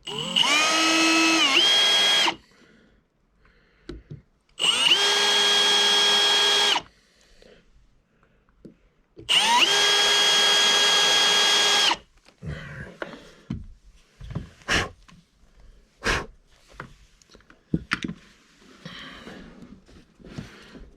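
Power drill boring into the boat's fiberglass in three runs of about two seconds each, its motor whine rising at each start and then holding steady. Scattered knocks and clicks follow.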